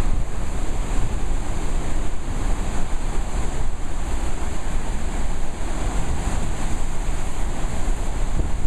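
Churning whitewater rushing steadily. Wind rumbles on the microphone underneath.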